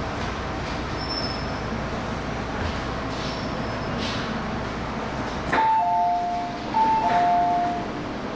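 MTR M-Train running with a steady rumble that cuts out as the train stops about two-thirds of the way in. The door chime then sounds a two-note high-then-low ding-dong twice as the doors open.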